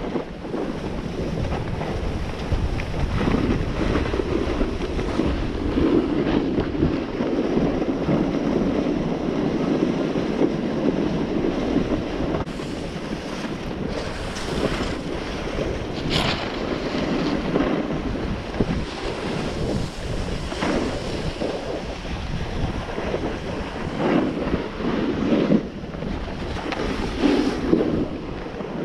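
Wind rushing over the microphone at speed, with the edges of the skier's gear hissing and scraping over hard-packed snow on a fast downhill run, plus a few sharper scrapes about halfway through.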